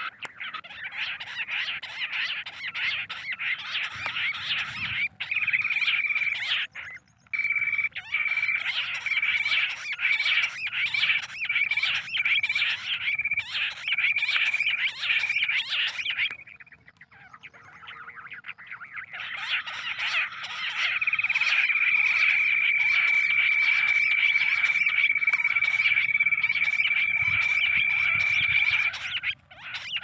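Recorded quail calls played through a loudspeaker as a hunting lure: a fast, dense chatter of calls with a steady high whistle-like tone running through long stretches. It breaks off briefly about seven seconds in and again for a few seconds past the middle, then resumes.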